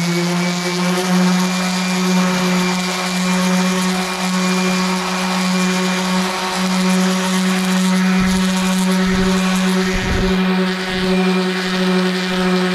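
Corded random orbital sander running steadily at full speed, its 3000-grit hook-and-loop disc sanding the plastic hull of a kayak. This is the last fine-grit step before buffing, to bring back the finish.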